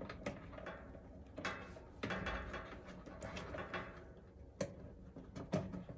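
Scattered light clicks and handling noise from insulated wire spade connectors being pushed onto the terminals of a dryer's replacement thermal fuse.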